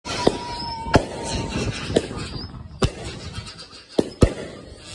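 Aerial fireworks going off overhead: six sharp bangs, roughly one a second, the last two close together, over a haze of crackle. A thin steady whistle sounds between the first two bangs.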